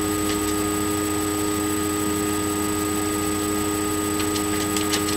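Steady background hum holding several fixed tones. About four seconds in, a fast run of light ticks starts, about five a second.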